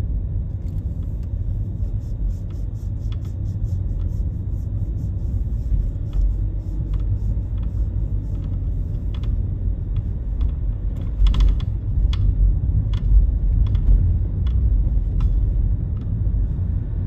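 Steady low rumble of a car driving slowly, heard from inside the cabin, with faint irregular ticks and clicks scattered over it, a small cluster of them about eleven seconds in.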